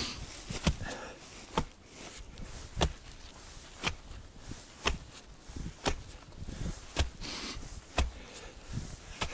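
Axe chopping wood: a steady run of sharp strikes, about one a second.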